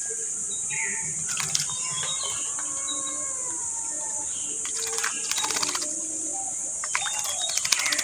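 Rose-ringed parakeets pecking at rice: quick runs of sharp beak clicks, thickest about five seconds in and again near the end, over faint bird chirps and a steady high insect drone.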